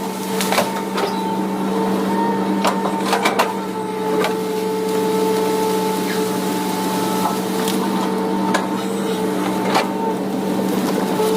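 Excavator engine and hydraulics running steadily with a droning whine, while wood and branches crack and snap in scattered sharp bursts as cleared vegetation is pushed and piled.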